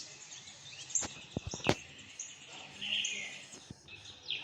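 Birds chirping, short high chirps over a light background hiss, with a few sharp clicks about a second and a half in.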